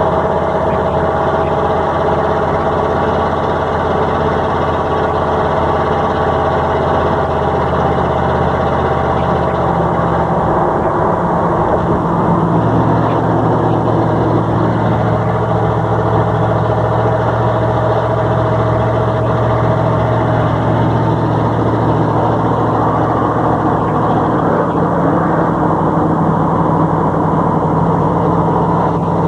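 A vehicle engine running steadily, its tone changing about ten to twelve seconds in and then holding.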